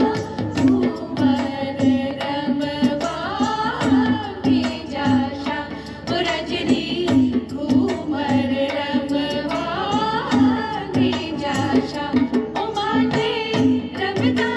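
Rajasthani folk song: a voice singing a winding, ornamented melody over steady drum beats.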